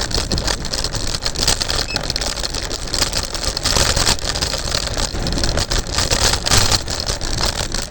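Electric scooter riding noise: a steady rush of noise with constant irregular rattling and knocking as the scooter and phone jolt over the road.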